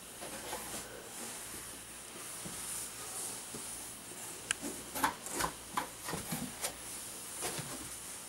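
Cardboard boxes shifted and rubbed by hand, giving a few short rustles and scrapes over a steady background hiss, most of them about five to seven seconds in.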